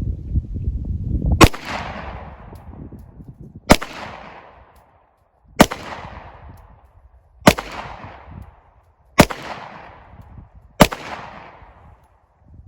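Six shots from a Glock 43 pistol firing 9mm full metal jacket rounds, about two seconds apart, each followed by a short echo.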